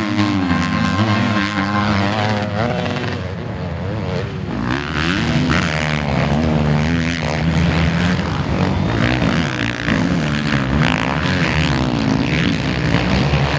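Several motocross bikes' engines running hard together, their pitch repeatedly climbing and dropping as riders rev and shift through the gears, with no let-up.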